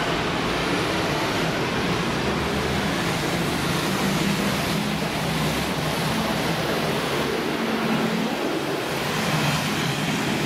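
Steady outdoor background noise: an even rush with a low hum underneath, holding level throughout with no distinct events.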